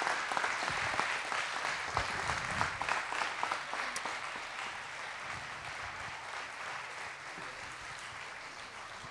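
Church congregation applauding, the clapping dying down gradually.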